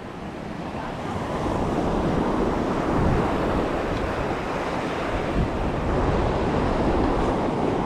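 Ocean surf breaking and washing up the beach, with wind buffeting the microphone. The rush swells over the first couple of seconds, then holds steady.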